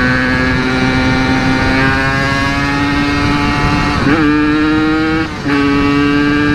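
Yamaha RX-King's single-cylinder two-stroke engine through a CRC aftermarket exhaust, pulling under acceleration with its pitch climbing steadily. It breaks about four seconds in and again briefly just after five seconds as gears are shifted, then climbs again.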